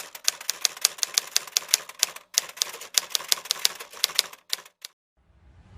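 Rapid typewriter-style key clicks, about five a second with a brief pause after two seconds, stopping about five seconds in. A rising whoosh starts just before the end.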